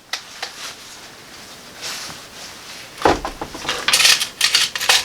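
Clicks, a knock and rattling of small metal tools being handled while a drill bit is changed for a larger one. The sounds are faint and sparse at first, then about three seconds in there is a knock, followed by a quick run of sharp clicks.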